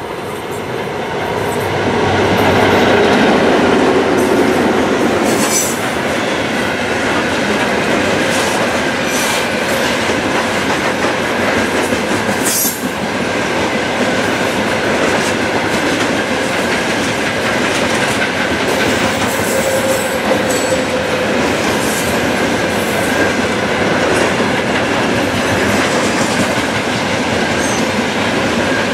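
2TE116 twin-section diesel freight locomotive passing close, loudest a few seconds in. It is followed by a long train of covered hopper wagons rolling steadily by, with a clickety-clack of wheels over rail joints and a sharp clank about halfway through.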